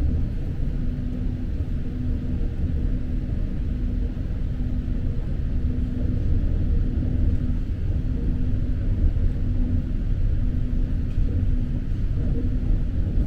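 Passenger train running along the rails, heard from inside the car: a steady low rumble with a faint steady hum that fades in and out.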